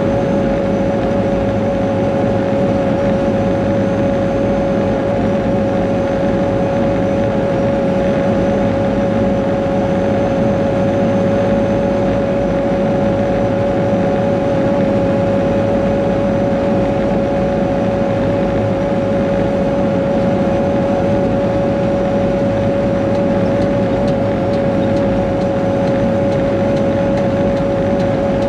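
Cat 140G motor grader's diesel engine running steadily while the grader travels along a sealed road, heard from the cab. A constant whine sits over the engine drone.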